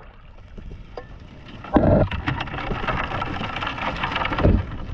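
Water splashing and dripping with a dense spattering crackle, and two heavier thumps, one about two seconds in and one near the end.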